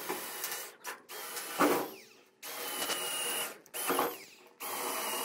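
Cordless drill boring holes through a metal diamond-plate trailer deck. The motor whine starts and stops in short bursts of about a second, five times, with a louder grind as the bit bites into the metal twice.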